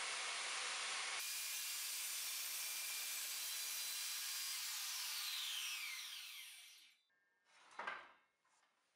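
Makita corded circular saw running steadily as it cuts through plywood along a guide rail. About six seconds in the motor winds down with a falling whine, and a short knock follows near the end.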